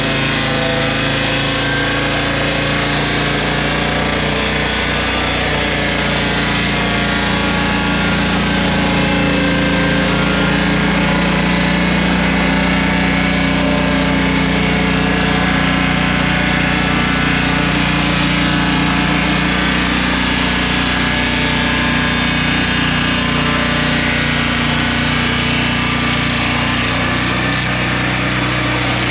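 Swingblade sawmill's engine running steadily, its pitch wavering slightly.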